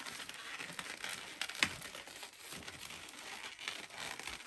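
Inflated latex twisting balloons rubbing together as they are handled and the nozzle is knotted, with a run of small clicks and one sharper click about one and a half seconds in.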